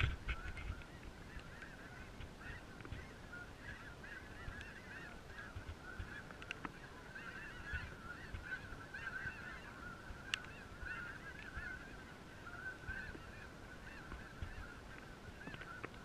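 Many geese honking together, a continuous overlapping chorus of calls from a flock.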